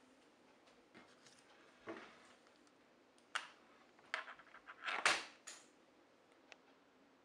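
Faint scattered clicks and short rustles over a quiet low hum, bunched together between about four and six seconds in.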